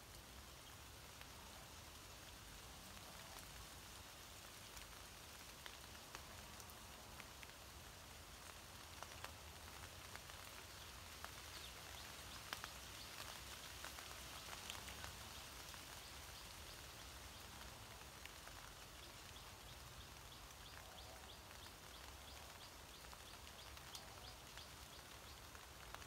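Faint rain falling on broad leaves, with scattered single drops ticking. The drops come thicker around the middle.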